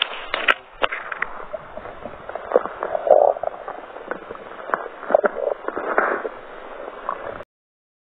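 Stomach gurgling and growling heard through a microphone pressed against a bare belly, in irregular bubbly swells mixed with sharp clicks and crackles. The sound cuts off abruptly near the end.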